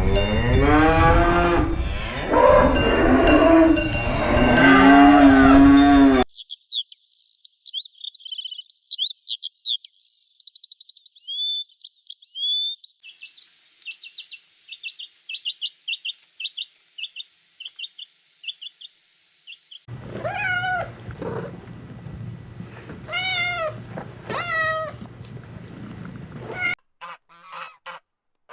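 A string of separately recorded animal calls cut one after another: loud low calls that rise and fall in pitch for about six seconds, then small birds chirping and trilling, then further pitched calls from about twenty seconds in.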